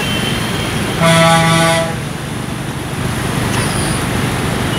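A vehicle horn sounds once, a single steady blast just under a second long, about a second in. Underneath is the constant noise of traffic and water on a flooded road.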